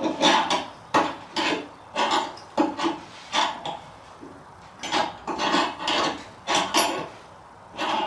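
Scissor jack being cranked down by hand to lower the car onto its spare tire. It makes a quick run of short rasping, scraping strokes, about two or three a second, with a brief pause about halfway through.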